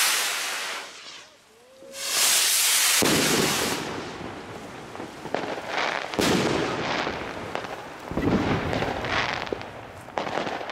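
Aerial fireworks going off in a series of shots: each one is a loud rushing hiss, followed by bursting stars with popping and crackling. There are four or five such surges, spaced a second or two apart.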